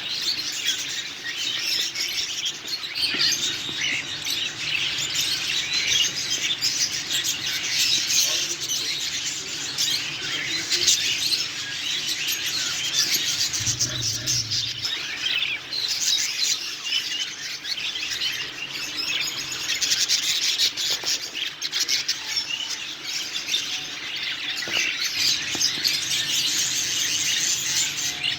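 Many small caged birds chirping and chattering at once: a dense, unbroken twittering of many overlapping calls.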